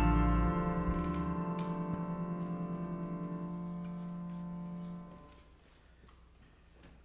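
A worship band's final chord on acoustic guitar, electric bass and keyboard, held and ringing out as it slowly fades. About five seconds in it dies away to faint room tone.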